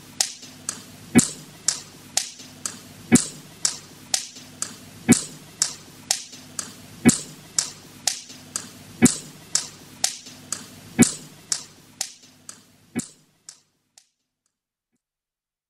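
Percussion-only outro of an electronic track: crisp drum hits about twice a second, with a heavier accented hit every two seconds, over a faint low drone. It fades out and stops about thirteen seconds in.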